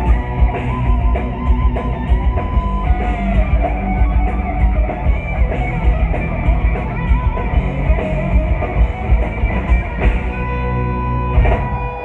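Live heavy metal band playing loudly, distorted electric guitar over pounding drums and bass, recorded from the audience. Near the end the band holds sustained notes, and a sharp drum hit lands.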